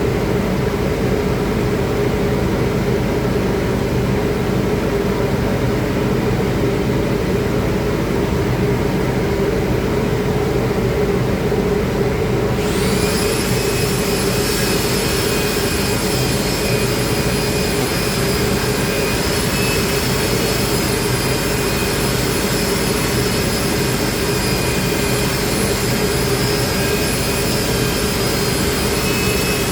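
Steady, loud machine drone with a low hum. About 13 seconds in, a high-pitched motor whine starts up and holds steady alongside it.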